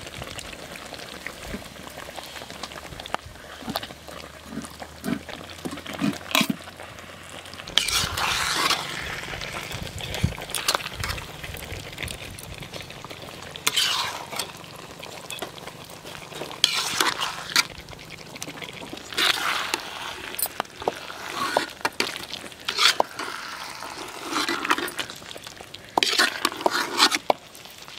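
Thick masala sizzling in a wide wok as whole chickens are turned and coated in it with a metal ladle, with a wet scrape or squelch every few seconds.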